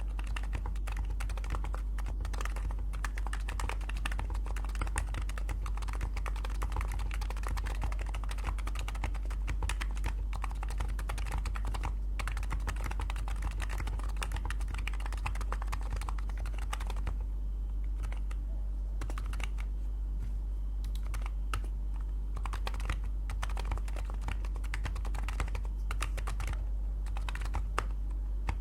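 Typing on a Rule60 V3 keyboard with Topre switches: rapid, continuous keystrokes, then slower, separate key presses from a little past halfway, over a steady low hum.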